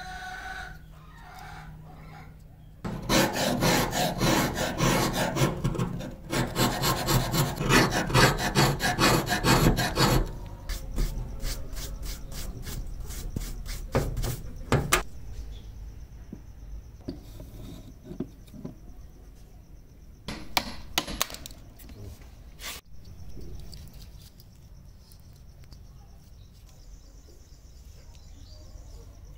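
Fast back-and-forth scraping and rubbing on a rusty chisel and its old wooden handle. A loud stretch of rapid strokes comes in the first third, then scattered strokes and a few sharp clicks, with a faint steady high tone in the later part.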